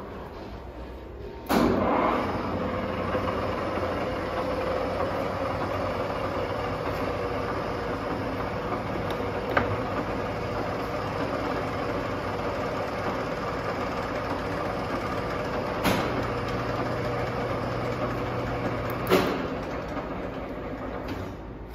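Wasino engine lathe running under power, starting with a sudden clunk about a second and a half in as the machine comes up to a louder steady run with a held hum. A few sharp metallic clicks follow, and the sound falls away near the end.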